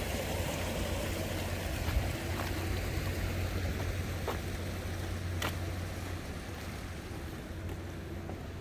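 Harbour ambience: a steady low engine hum with a light wash of background noise and a few faint clicks.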